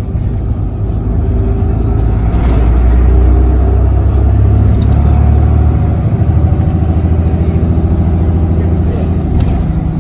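Bus engine and road noise heard from inside the passenger cabin: a steady low rumble that swells a little louder a couple of seconds in.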